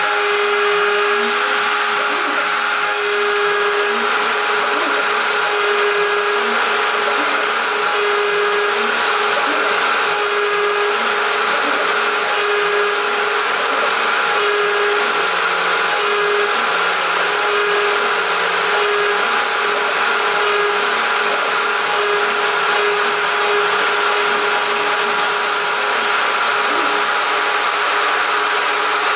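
CNC router spindle running steadily while its end mill cuts 6061 aluminium, a continuous high whine with a steady hiss.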